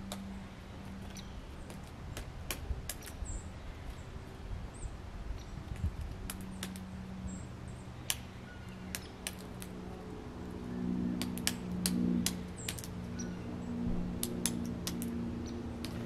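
Outdoor backyard sound: scattered short, sharp, high clicks and a few faint high chirps of small birds. A low droning hum of several steady tones grows louder in the second half.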